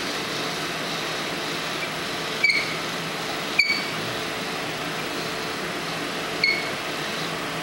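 Hand-cranked chrome pasta machine rolling a sheet of dough, giving three short metallic clicks with a slight ring: the second about a second after the first, the third about three seconds later. Under them runs a steady hum like an air conditioner.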